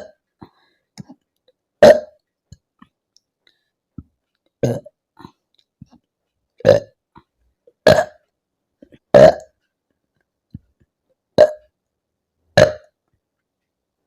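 A woman burping repeatedly after chugging Limca lemon-lime soda, the gas coming up from the fizzy drink. There are seven short, loud burps, one every second or two.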